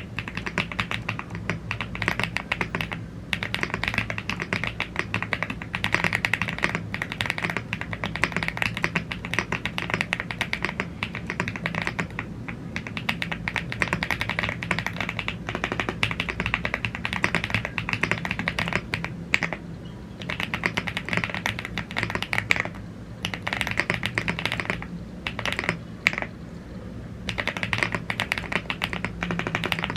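Typing on a YUNZII AL75 gasket-mounted aluminium mechanical keyboard with Blue Grey tactile switches and PBT keycaps: rapid, continuous keystroke clicks, broken by a few short pauses in the second half.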